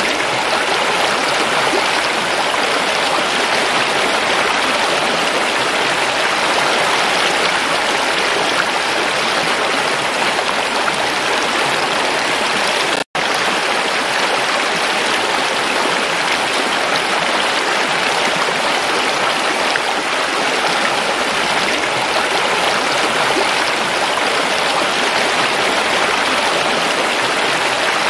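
Shallow stream rushing and splashing over rocks in a steady flow, broken by a split-second silent gap about halfway through.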